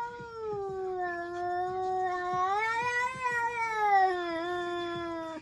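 A domestic cat giving one long, drawn-out yowl that rises in pitch around the middle and falls again, then cuts off suddenly at the end.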